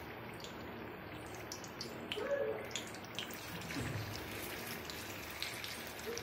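Marinated tiger prawns sizzling in hot oil in an iron kadai, a steady hiss broken by scattered crackles and pops. More prawns are dropped into the oil about four seconds in.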